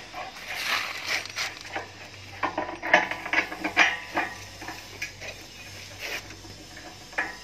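Steel parts of a concrete block-making machine being handled and fitted by hand: irregular metal clinks and knocks, thickest about halfway through, over a faint steady hum.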